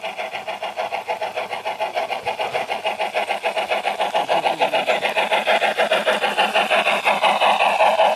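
Garden-scale model steam locomotive chuffing along the track, a rapid even beat of about ten exhaust beats a second that grows louder as the engine approaches.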